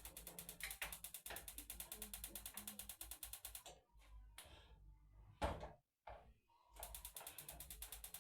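Rapid, even mechanical ticking, about ten clicks a second, that stops for about three seconds around the middle and then starts again. A single loud knock falls in the pause.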